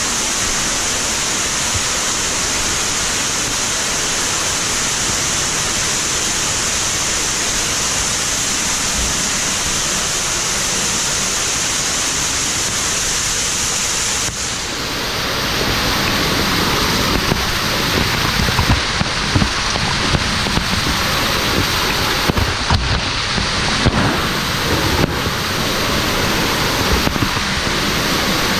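Floodwater pouring down a cave shaft as a waterfall, a loud steady rush. About halfway through it briefly dips, then comes back louder and rougher, with irregular thuds as spray splashes straight onto the camera.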